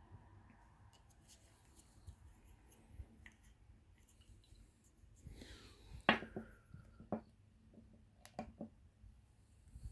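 Faint clicks and taps of a perfume bottle and its plastic cap being handled on a paper-covered table, with a brief rustle about five seconds in followed by the loudest knock and a few more clicks.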